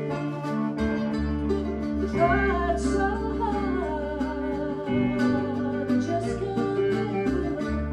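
Small blues band playing an instrumental passage: plucked guitar and mandolin over bass and drums. About two seconds in, a wind instrument's lead line comes in, bending and wavering in pitch.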